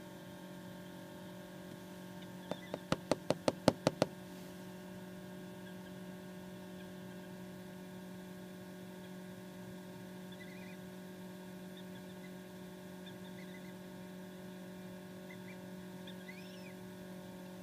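A quick run of about eight sharp knocks, lasting just over a second, over the steady hum of an egg incubator, with a few faint high peeps later: an Emden gosling hatching from its shell.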